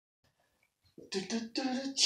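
After about a second of near silence, a man vocalizes short pitched syllables in a rhythm, beatbox-style, running into a sharp hiss at the end.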